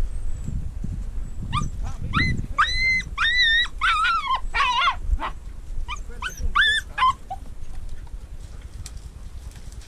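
A hunting dog giving a quick run of short, high-pitched yelps and whines, excited at a mink hidden in the brush; the calls stop about seven seconds in.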